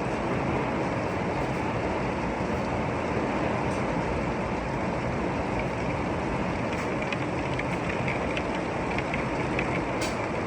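Heavy storm rain pouring steadily, a dense even rush with a deep rumble underneath and a few faint ticks of drops striking something near the end.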